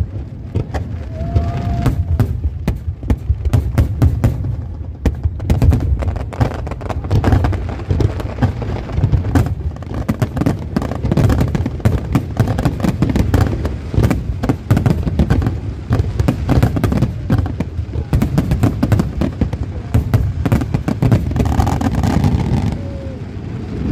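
Fireworks display: many sharp bangs and crackles in quick, irregular succession over a continuous low rumble.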